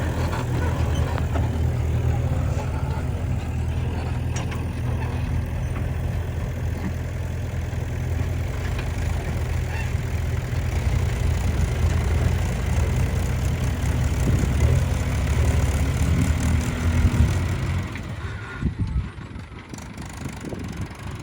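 Heavy diesel engine running steadily, then dropping away about eighteen seconds in.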